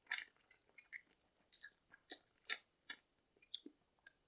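Close-up chewing of a mouthful of spicy Korean stir-fried noodles: a string of short, wet mouth clicks and smacks, roughly two or three a second.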